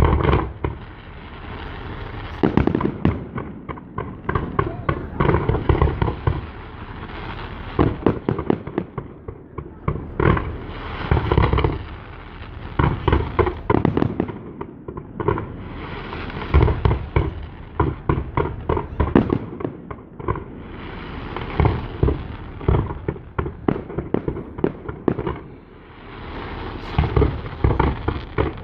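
Fireworks display: dense volleys of bangs and crackling that swell in waves every two to three seconds.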